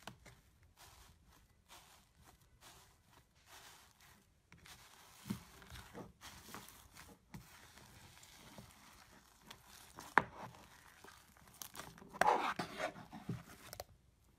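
Hands pressing and stretching bubbly, foamy slime: a run of soft crackling and crinkling pops as the bubbles burst, growing louder near the end, with one sharp click about ten seconds in.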